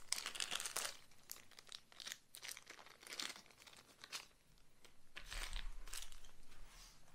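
A small clear plastic parts bag crinkling and rustling in the hands as it is opened and the electric brake parts are taken out, in short irregular rustles.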